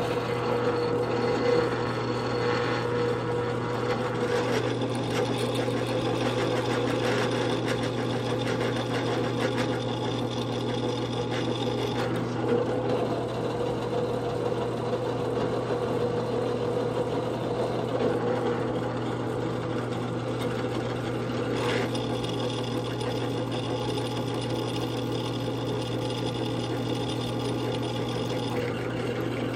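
Drill press motor running steadily while a 1/8-inch tap drill bores out a 3/32-inch pilot hole in a stainless steel bolt release button, lubricated with cutting oil.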